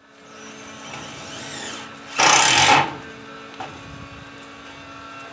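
A cordless drill runs in one short burst of under a second, about two seconds in, with fainter scraping and handling noise around it.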